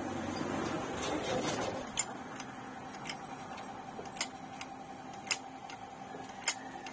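A bearing being pressed on with a hydraulic bench press: rustling handling noise for the first couple of seconds, then about seven sharp, irregular metallic clicks, over a steady hum.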